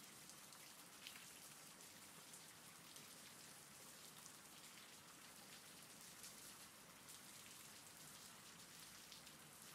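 Faint, steady rain: a rain-sound ambience track, an even hiss of falling rain with a few slightly more distinct drops.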